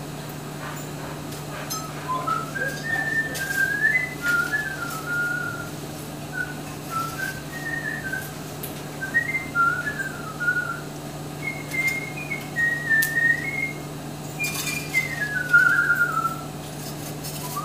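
A person whistling a tune, the notes hopping up and down with short pauses, over a steady low hum and a few light clicks.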